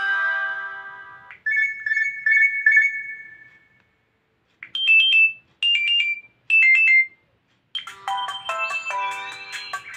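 LG G3 Stylus built-in alarm tones playing one after another. A chiming melody dies away, then comes a short repeated two-note twinkle that fades out. After a brief gap there are three short falling chirps about a second apart, and a new melody begins near the end.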